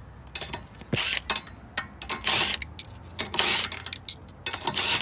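Cordless DeWalt driver run in short bursts, four times about a second apart, spinning the lug nuts off a car wheel.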